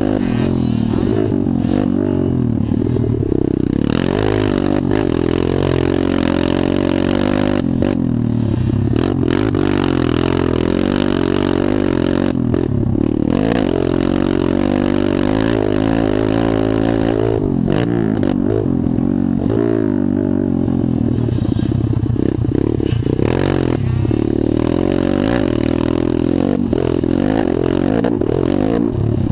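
Motocross dirt bike engine heard from a camera mounted on the moving bike, running loud at speed with its pitch rising and falling over and over as the rider works the throttle and gears.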